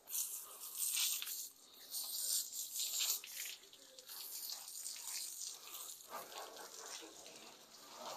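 Water hissing from a garden hose spray nozzle, strongest for the first few seconds, then a softer spray splashing over the car.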